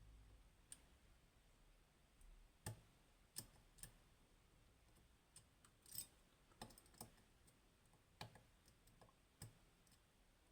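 Faint, irregular small clicks of a lock pick working the pins of a GOAL Grand V high-security pin-tumbler lock, scattered a second or so apart.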